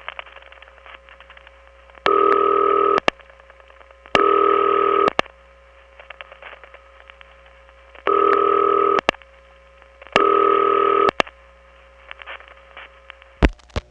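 Telephone ringback tone on a line served by an old number one step exchange, ringing in pairs of short bursts about a second long, the pattern of a double ring. Between the bursts the line crackles and clicks with step-switch noise over a faint hum, and two sharp clicks come near the end.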